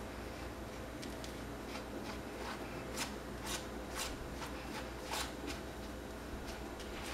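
Plastic spatula rubbing and scraping across a sanitary pad damp with fabric softener: a series of short, soft, irregular scraping strokes, the strongest ones in the middle, over a steady low hum.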